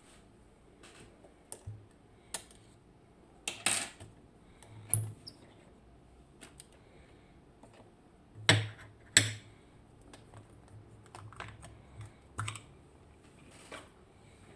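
Irregular clicks and knocks of a lock cylinder and small metal tools being handled, as the picked Mul-T-Lock Integrator is readied for taking apart. Two louder sharp clicks come about halfway through.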